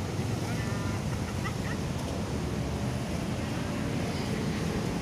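Steady low rumble of road traffic mixed with wind buffeting the microphone, with faint voices about a second in.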